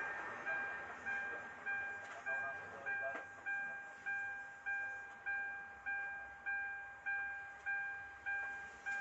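Electronic warning chime dinging over and over at the same pitch, about one and a half dings a second, each ding fading before the next.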